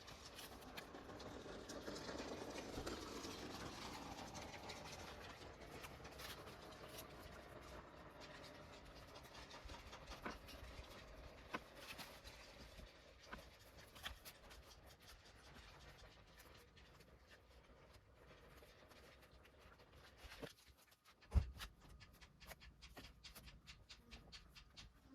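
Faint handling noise of foam tape being wrapped around car-door wiring and cables: soft rustling with scattered small clicks, and one sharper knock about three-quarters of the way through.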